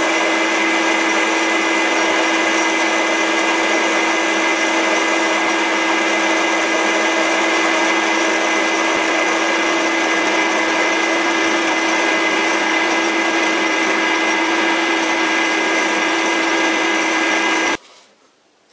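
Metal lathe running under power during a turning pass with a carbide insert bit on a steel shaft: a steady, even machine whine with a few constant tones. It stops abruptly near the end.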